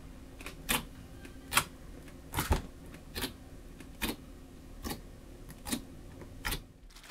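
Fingertips poking into a glossy, pigment-tinted slime, each poke giving a short sharp wet click, about one every 0.8 seconds.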